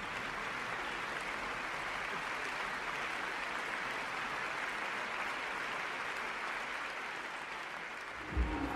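Audience applauding steadily. Near the end, loud music starts with heavy, regular drum beats.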